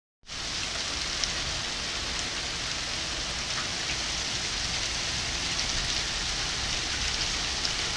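Heavy rain mixed with hail pouring onto paving stones: a dense, steady hiss with a few sharper ticks, starting abruptly a moment in.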